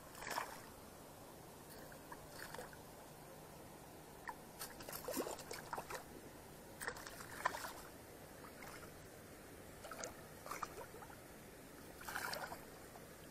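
River water sloshing and splashing close by in short, irregular bursts, over a faint steady low hum.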